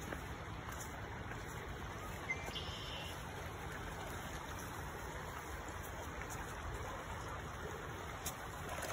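Shallow creek running over stones, a steady wash of water noise.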